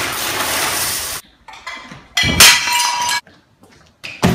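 Dry pasta poured out of a bag onto a hardwood floor, a loud rattling rush lasting about a second. After a short pause comes another loud noisy burst of about a second, and a sharp knock near the end.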